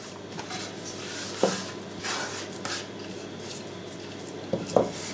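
Sliced onion pushed off a wooden cutting board into a ceramic pot and spread by hand: soft handling noise with a few light knocks, one about a second and a half in and a couple near the end.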